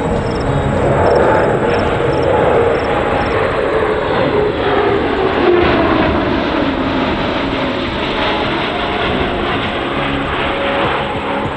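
C-17 Globemaster III's four turbofan jet engines running loud as the transport flies past in a banking turn. Partway through, their tone falls steadily in pitch as the aircraft goes by.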